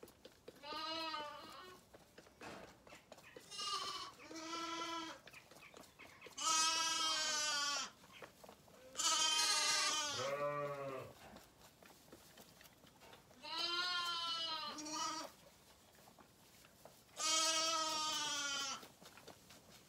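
Zwartbles lambs bleating again and again: about eight wavering bleats, each up to a second and a half long, some coming in quick pairs, the loudest ones near the middle.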